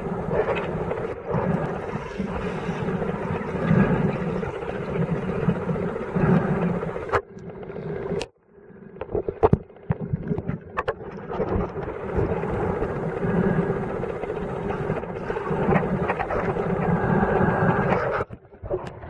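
Muffled underwater noise heard through a camera's waterproof housing: water moving and bubbling around the camera, with a low throb about once a second. The sound drops almost to nothing for a moment a little past the middle, with a few clicks, then resumes.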